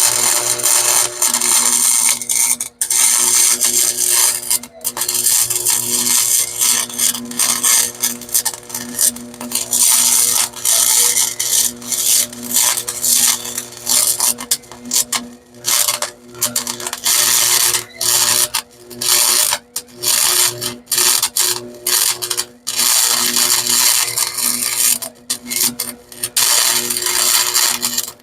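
Welding arc crackling steadily as a weld bead is laid on a steel shock mount, breaking off briefly many times as the welder stops and restarts, with a steady low hum underneath.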